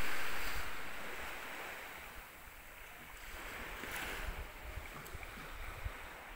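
Small waves washing onto a sandy beach, each wash a hiss that swells and fades: one at the start, another about four seconds in. Wind rumbles on the microphone underneath.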